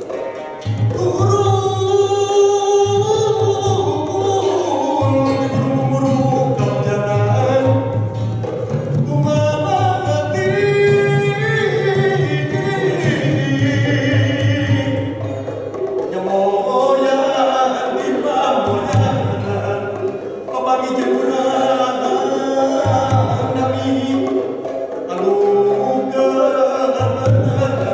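Gamelan ensemble playing: bronze kettle gongs and keyed metal percussion ringing in patterns over a hand-played barrel drum, with a voice singing a wavering melody above.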